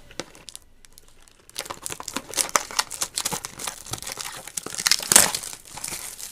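Cardboard box of trading cards being torn open and its plastic packaging crinkled by hand, a quiet moment of small rustles and then dense crackling and tearing from about a second and a half in, loudest about five seconds in.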